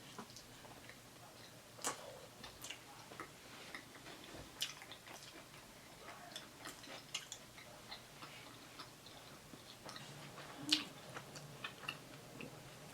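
Close-miked eating of a cheesesteak: irregular wet mouth clicks and smacks of chewing, a few louder ones about two seconds in, near five seconds and near eleven seconds.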